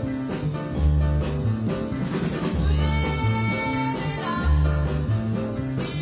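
Background music with a repeating bass line; a melody of held notes comes in about halfway through.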